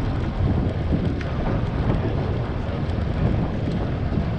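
Wind rushing over the microphone of a GoPro mounted on a moving tandem bicycle: a steady low rumble with a few faint ticks now and then.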